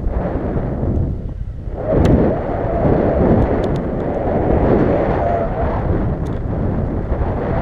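Wind rushing and buffeting over an action camera's microphone in paraglider flight, a loud, uneven rumble that swells about two seconds in.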